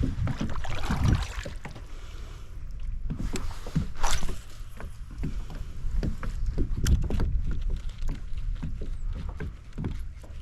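Sounds from aboard a fishing kayak on the water: irregular knocks and splashes over a steady low rumble.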